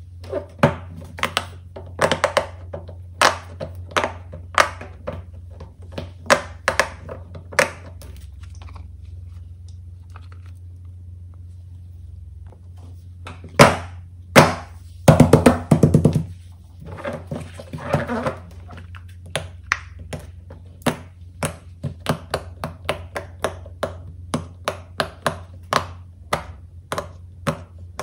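Silicone pop-it fidget toys being pressed, their bubbles popping in sharp clicks. The pops come in scattered runs, with a quiet stretch in the middle and a quick burst of pops a little past halfway.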